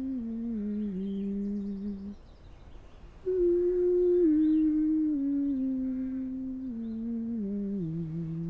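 A woman humming a slow, wordless tune of held notes that step downward. It comes in two phrases, broken by a short pause about two seconds in, and the second phrase starts higher and louder.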